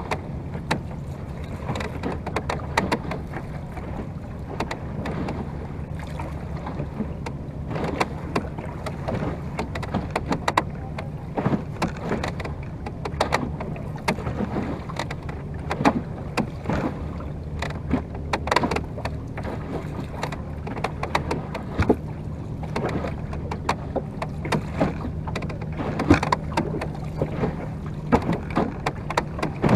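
Choppy lagoon water splashing and slapping irregularly against the wooden bow of a Venetian rowing boat under way, with a steady low hum underneath.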